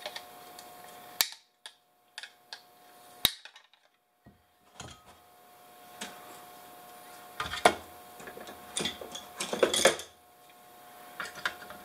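Sharp snaps and clicks of side-cutting pliers working parts off an induction cooktop's circuit board. There are two loud snaps in the first few seconds, then a run of clicks and knocks as the pliers and the board are handled and set down.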